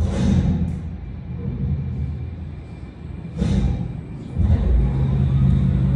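Low mechanical rumble and hum of a Carvana car vending machine's platform conveying a car out of the tower, easing off in the middle and picking up again with a steady hum. Two brief hissing swooshes come at the start and about three and a half seconds in.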